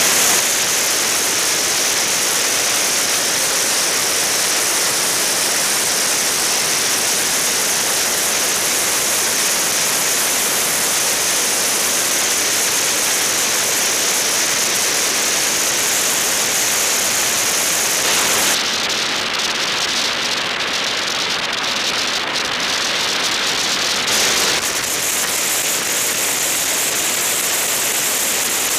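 Steady rushing wind noise on the microphone of a camera riding on a moving bicycle. The high hiss thins out for about six seconds past the middle, then returns.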